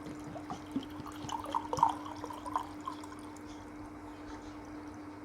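Hand mixing rice and curry on a thali plate: a cluster of small wet clicks and squelches between about one and three seconds in, over a steady low hum.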